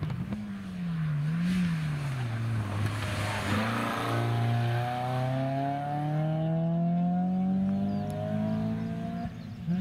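Peugeot 206 rally car's engine at speed on a special stage. The revs rise and fall briefly, drop low as it slows for a corner, then climb steadily in one long pull as it accelerates away.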